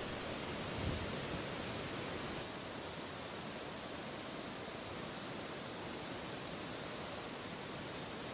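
Floodwater in a swollen river rushing steadily, one even rush of water with no breaks.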